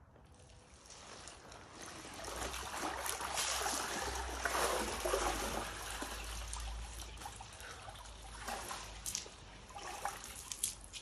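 Ice water streaming and dripping off a man's body as he stands up in a portable ice bath tub, loudest about halfway through. Near the end come a few sharper splashes as he climbs out over the rim.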